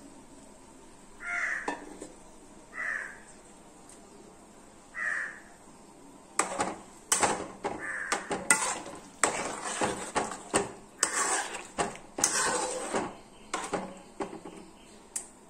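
A crow caws three times in the first five seconds. Then, from about six seconds in, a ladle stirs chunky mango pickle in a metal pan, knocking and scraping against the pan in quick, irregular strokes that are louder than the caws.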